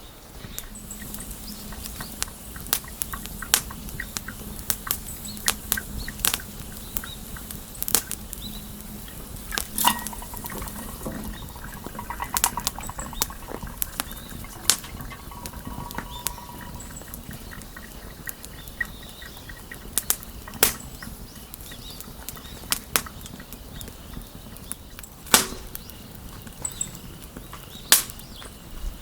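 Wood fire crackling, with irregular sharp pops throughout and a few louder snaps near the end.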